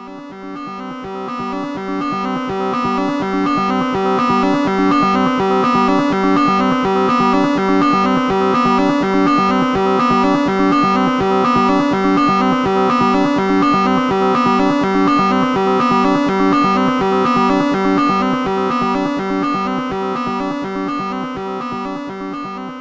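Moog Spectravox synthesizer voice, its oscillator run through its filter, playing a fast, even, repeating sequence of short notes. It fades in over the first few seconds and fades out near the end.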